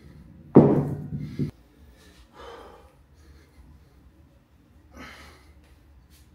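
A 100-pound kettlebell set down on a concrete floor: one heavy thud about half a second in, with a low ringing that lasts about a second and stops abruptly. Then two heavy breaths from the lifter resting between sets.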